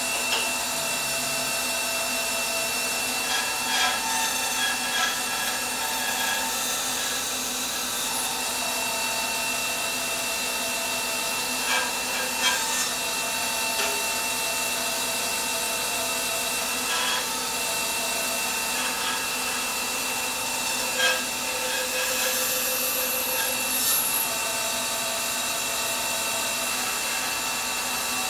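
Laguna 14|12 bandsaw running steadily with a high whine while its blade cuts dovetail tails in half-inch cherry, with a few brief louder moments as the cut goes on.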